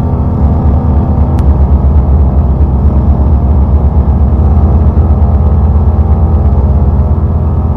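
Loud, steady low drone of experimental music: a dense, rumbling wall of low sustained tones with little high end.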